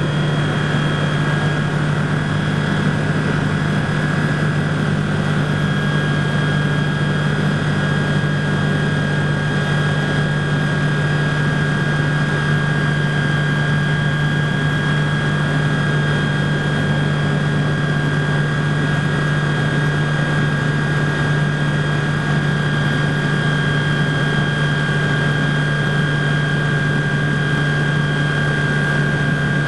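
BushCaddy R-80 ultralight floatplane's Rotax 912 flat-four engine and propeller running steadily in flight, heard from inside the cockpit: a low steady drone with a steady high tone above it.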